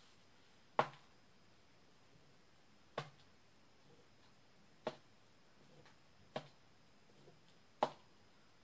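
Wooden stick tapping on a stretched canvas, dabbing on paint: five sharp taps with a dull thud under each, about every one and a half to two seconds.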